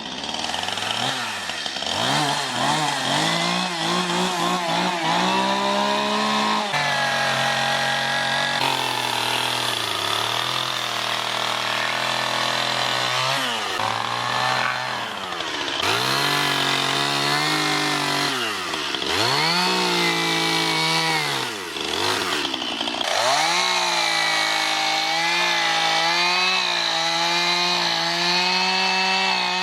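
Chainsaw carving into a tree stump, the engine revving up and down over and over. It drops back toward idle several times, around the middle and again later, then climbs back to full speed.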